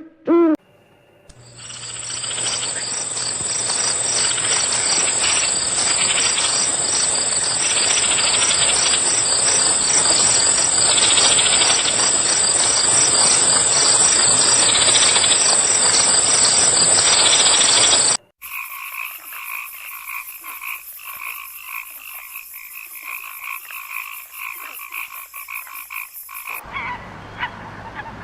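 A chorus of frogs calling densely over a steady high-pitched trill. About 18 seconds in it cuts abruptly to a second, quieter recording of frogs trilling in rapid pulses, which stops shortly before the end.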